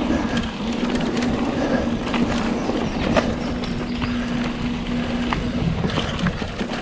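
Mountain bike rolling along a trail: tyre noise with scattered small knocks and rattles, and a steady hum that stops a little after five seconds in.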